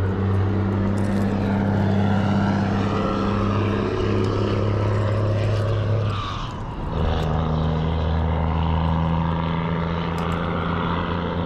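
Heavy 18-wheeler trucks crossing the bridge overhead: a loud, steady low engine drone that dips briefly about six seconds in, then picks up again as another truck passes.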